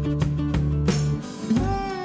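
Background music: a country-style guitar track with a steady beat.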